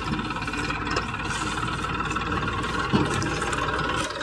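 Eicher 380 tractor's diesel engine running steadily as the tractor drives forward, with a couple of light knocks from the rig.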